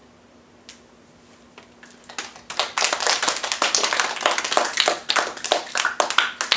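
Hands clapping in applause, starting about two seconds in and continuing with fast, irregular claps.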